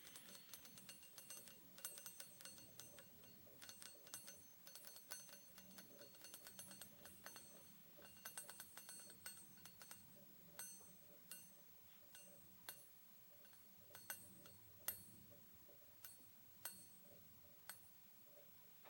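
Soft taps on a small hard object that rings briefly with a high, bell-like tone at each tap. The taps come in quick flurries for about the first half, then single taps spaced about a second apart.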